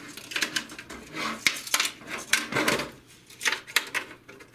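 Hard plastic clicking and clattering, a dozen or so irregular sharp clicks, as snap latches on an HP DeskJet 2130's plastic chassis are released and the paper-path sensor board is worked free.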